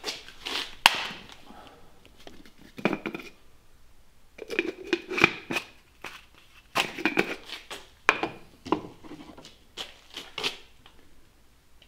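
Plastic paint cup of a gravity-feed spray gun being twisted and handled, giving a series of short clattering and clicking bursts.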